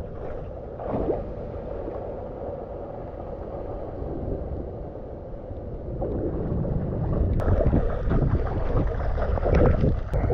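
Hurricane wind buffeting the microphone over sloshing storm-surge floodwater. It grows louder and gustier about six seconds in.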